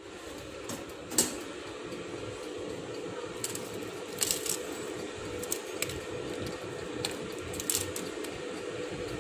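Steady hum of a running air fryer, with scattered light ticks as raw white sesame seeds are sprinkled onto the fish and foil in its basket; the sharpest tick comes about a second in.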